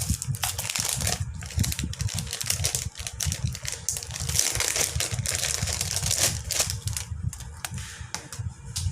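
Plastic packaging crinkling and rustling as it is handled and opened, a dense run of irregular crackles and clicks over a low rumble.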